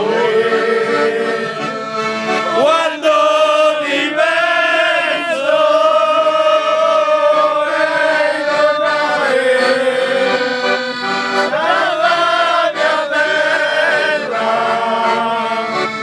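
Piano accordion playing a folk tune with a man singing loudly along, holding long notes.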